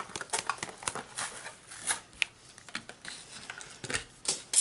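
Trading cards being handled and flipped through by hand, with irregular clicks and light rustles of card edges sliding against each other.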